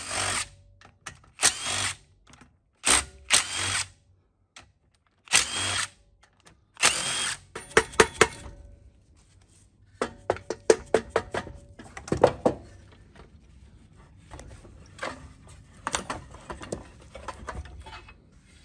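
Cordless DeWalt impact driver spinning in about six short bursts over the first eight seconds, backing out the mower engine's oil sump cover bolts. After that come scattered metal clicks and knocks as the sump cover is pried loose and handled.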